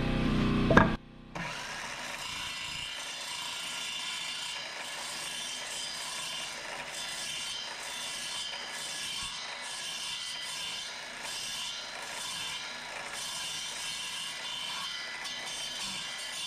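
Wood being sawn, a steady sawing sound through framing lumber.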